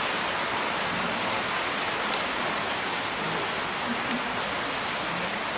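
Thunderstorm rain pouring down steadily: an even hiss without a break.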